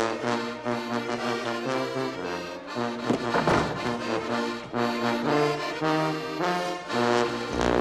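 Brass band music: trombone, tuba and trumpet playing a bouncy tune in even, regular notes, with a cymbal crash about halfway through and another near the end.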